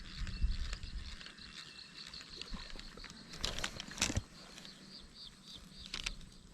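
Outdoor ambience: a steady series of short, high chirps repeating a few times a second, with a few brief noisy bursts around the middle and one near the end.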